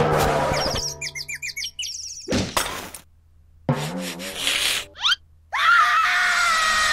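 Cartoon sound effects for a stop-motion animation: a fast run of chirpy squeaks about a second in, a short burst, and a wobbling cartoon voice. Then comes a long, loud, high-pitched cartoon scream held through the last second and a half.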